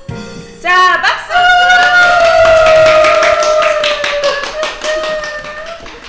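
A young child's long, high-pitched squeal, held for several seconds and sliding slightly down in pitch, over a fast run of sharp taps.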